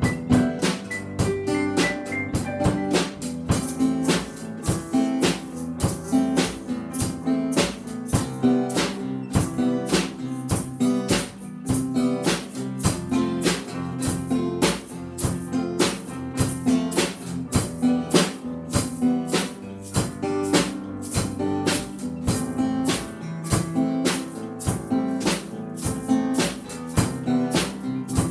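A small student band playing live: a drum kit keeping a steady beat under acoustic guitar and electronic keyboards.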